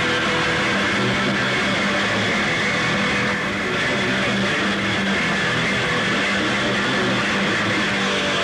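Live hardcore punk band playing loud distorted electric guitar: a dense, steady wall of noise with a few held tones running through it.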